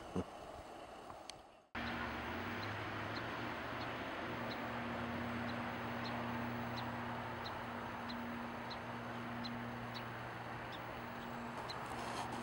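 Outdoor ambience that cuts in abruptly a couple of seconds in: a steady low hum under an even hiss, with a faint high chirp repeating about one and a half times a second.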